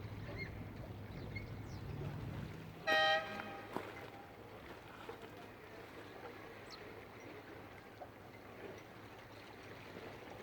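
A single short horn toot, about three seconds in, flat in pitch. Before it, a low steady rumble stops about two and a half seconds in, leaving faint outdoor background with occasional small chirps.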